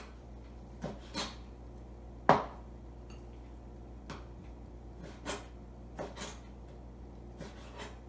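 Chef's knife cutting raw chicken thighs into strips, the blade knocking on a plastic cutting board in short, irregular strokes. The loudest knock comes a little over two seconds in.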